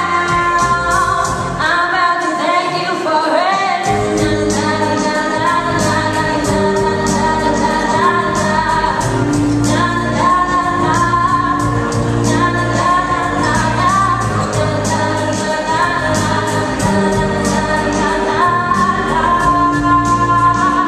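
A woman singing a slow pop-gospel style song into a handheld microphone, amplified, over instrumental accompaniment with a steady bass line and a regular beat.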